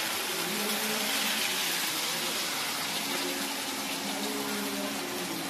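Hot oil in a kadai sizzling steadily as wheat-flour snacks deep-fry, a constant frying hiss.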